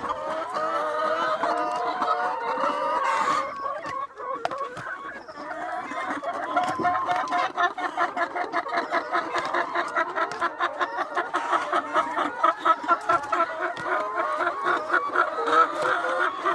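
A flock of laying hens clucking and calling over one another, with rapid, repeated clucking through the second half.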